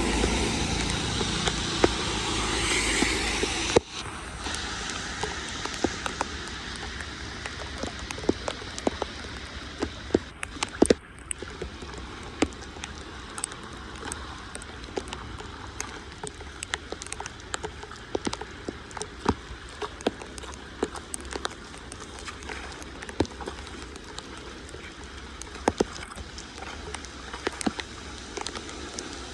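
Rain on a flooded street: a steady hiss with many scattered sharp drips and ticks. A louder rushing noise in the first few seconds cuts off abruptly about four seconds in.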